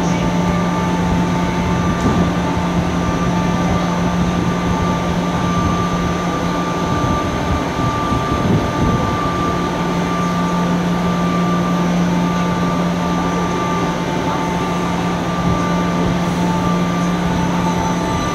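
Kaohsiung MRT metro train standing at the platform with its onboard equipment giving a steady hum made of several constant tones, as it waits to depart and begins to move off near the end.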